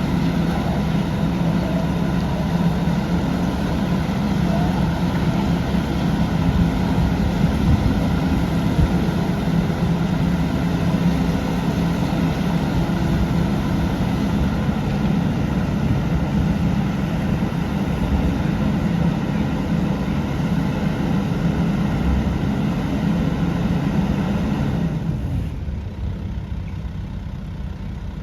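Diesel engine of a Kubota KX080-3a 8-tonne excavator running steadily. About 25 seconds in its sound falls away and fades.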